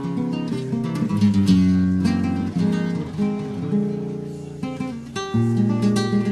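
Background music played on acoustic guitar, with plucked notes and strummed chords.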